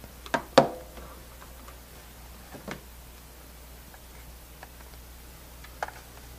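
Two sharp clicks about half a second in, the second with a short ring, as a hard plastic handheld refrigerant leak detector is set down on a tabletop. A couple of fainter taps follow over quiet room tone.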